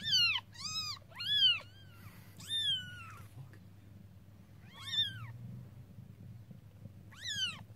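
Newborn kittens mewing: six short, high-pitched cries, each rising then falling in pitch. Three come in quick succession at the start, then one more about two and a half seconds in, one near five seconds and one near the end.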